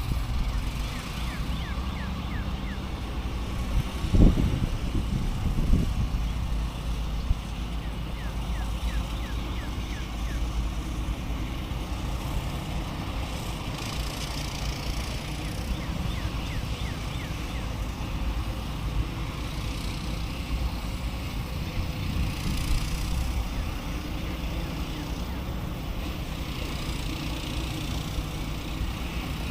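Steady low outdoor rumble, with two short knocks about four and six seconds in and faint short high chirps now and then.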